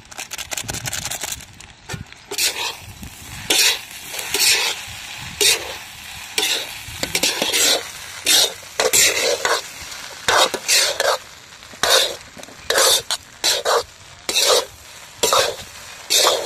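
Steel spatula and steel spoon scraping and stirring rice in a large iron kadai, one scraping stroke about every second.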